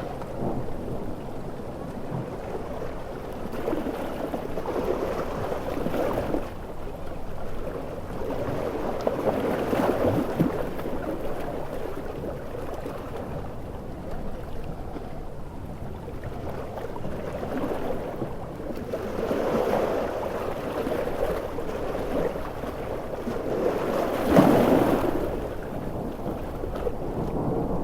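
Ocean waves surging and breaking in repeated swells over a steady wash of water noise, the biggest wave breaking near the end.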